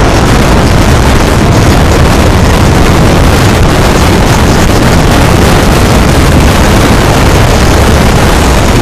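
Steady, heavily distorted noise of a car driving, recorded from inside the cabin so loud that the microphone is overloaded.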